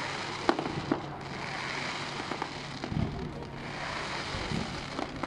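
Fireworks going off: two sharp bangs about half a second and a second in, over a steady hiss, with a duller thump about three seconds in.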